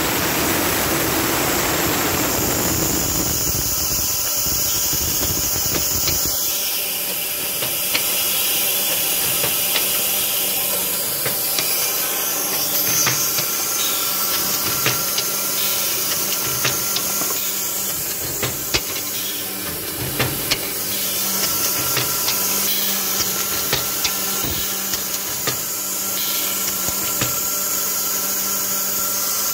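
Semi-automatic pneumatic multi-drill press for wooden bee frame end bars running: a steady hiss of air and a hum from the drill motors, with frequent sharp clacks as the air cylinders cycle.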